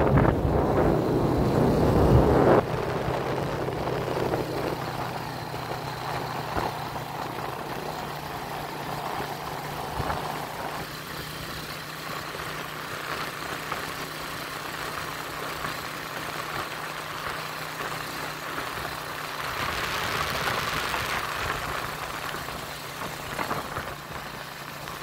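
Vehicle engine running steadily while riding along a road, with wind buffeting the microphone for the first couple of seconds.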